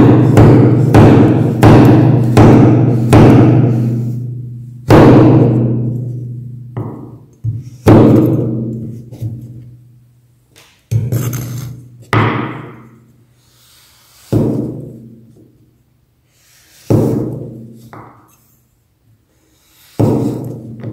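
A large curved steel knife chopping down through frozen chocolate-coated ice cream cones onto a wooden cutting board. It makes a quick run of chops at first, then single chops every second or two. Each chop leaves a low ringing that fades over a few seconds.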